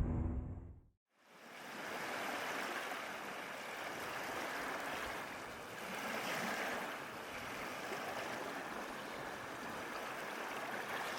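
A sound fades out within the first second, and after a short silence a steady rush of flowing water fades in and carries on evenly.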